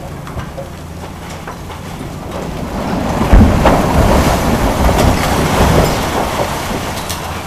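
Reinforced concrete floor slab breaking off and crashing down as an excavator tears into a multi-storey concrete frame: a heavy crash about three seconds in, then several seconds of rubble crumbling and pouring down that fades near the end. Under it the excavator's diesel engine runs with a steady low hum.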